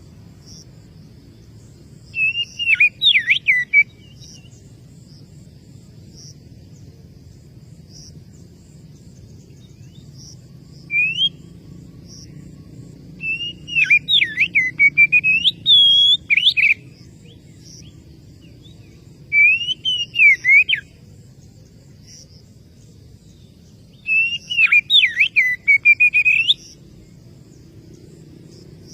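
Oriental magpie-robin (kacer) singing: bursts of varied whistled phrases that sweep up and down, in about five spells with pauses between. It is the challenge song used to call out a rival.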